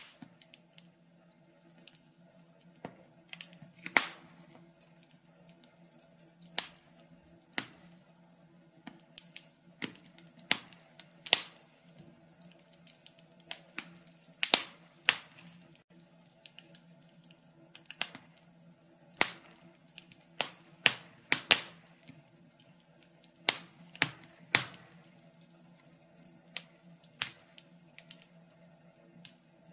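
Logs burning in a fireplace, crackling with irregular sharp pops and snaps, sometimes two or three in quick succession, over a faint steady hum.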